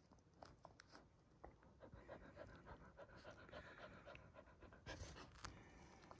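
A mother dog in labour panting softly, with faint wet clicks, briefly louder about five seconds in.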